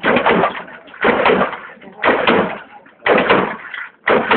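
Lowrider car hopping on its hydraulic suspension: a sudden bang and rattle about once a second as the front end comes down, each dying away before the next hop.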